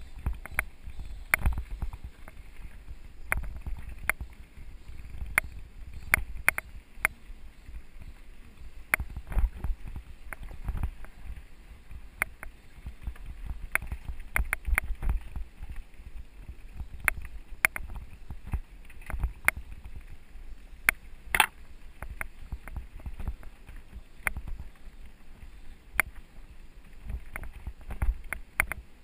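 Mountain bike riding over a rough dirt and stony trail: tyres crunching on loose stones, with frequent sharp, irregular knocks and rattles from the jolting bike, over a low rumble.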